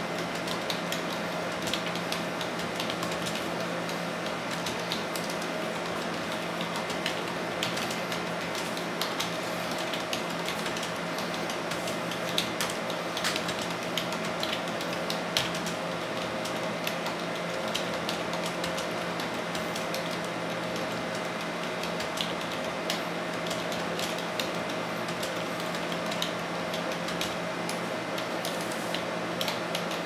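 Continuous typing on a Logitech K120 rubber dome keyboard: a fast, uneven run of soft, muted key presses over a steady background hum.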